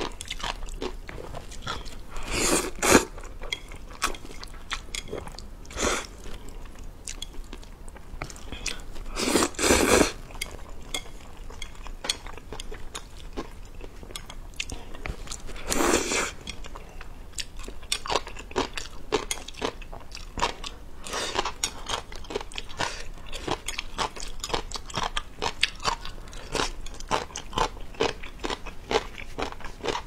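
Close-miked eating of spicy fire noodles: steady wet chewing with quick mouth clicks, broken by louder slurps of noodles about 3, 10 and 16 seconds in.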